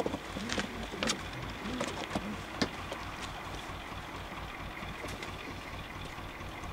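Handling noise as a pigeon is taken out of a crate: a few sharp knocks and rustles in the first three seconds, then a steady low background rumble.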